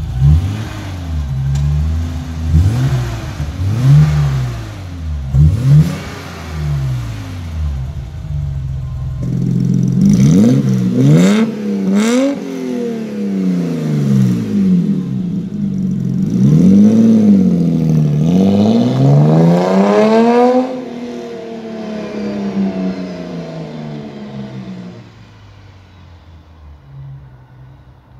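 BMW E30 320i's straight-six engine blipped again and again through a hand-made stainless-steel valved exhaust, the revs rising and falling. About 20 seconds in the revving stops and the engine drops back to a lower, steadier note that fades near the end.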